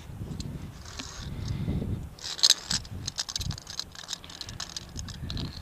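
Metal clinking and rattling of via ferrata carabiners and lanyard gear against the steel safety cable. The rattling is loudest in a quick cluster a little over two seconds in, with scattered clicks after it. Low rumbling on the microphone runs under it.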